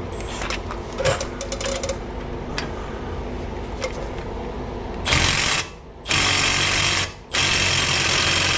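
A 3/8-inch-drive 90-degree impact ratchet hammering in three bursts, starting about five seconds in, on a very tight, Loctited brake caliper bolt that barely wants to turn. Before the bursts there is a low steady hum with a few clicks.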